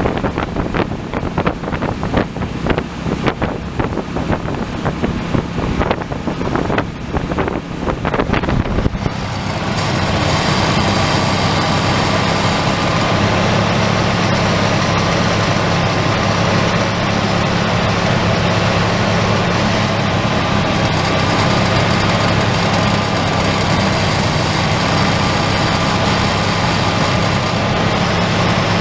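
1994 Chevy Silverado's 5.7-litre 350 V8 running during a Seafoam treatment. For about the first nine seconds, irregular buffeting noise on the microphone rides over it. After that the engine sound turns louder and steady for the rest of the time.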